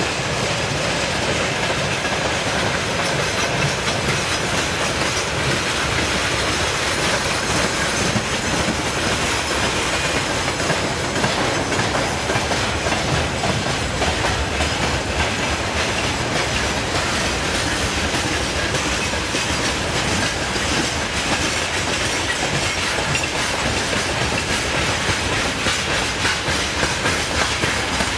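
Freight train wagons rolling steadily past, wheels clicking over rail joints above a continuous rumble and rattle.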